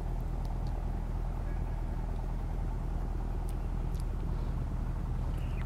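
Steady low hum of a running motor, even in level, with two faint ticks in the second half.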